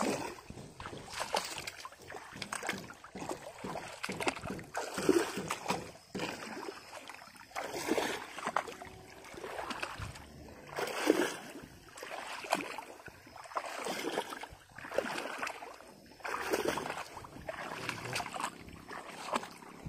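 People wading through shin-deep floodwater in a flooded rice paddy: repeated sloshing splashes of legs pushing through the water, about one stride every second and a half.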